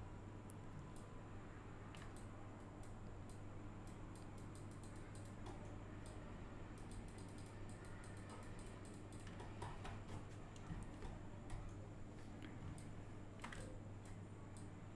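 Faint, irregular clicks of a computer mouse and keyboard, coming in quick runs in the middle stretch, over a steady low hum.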